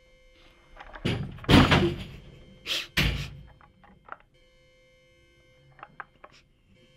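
Door banging: four heavy thuds over about two seconds, the second the loudest, then a few faint clicks.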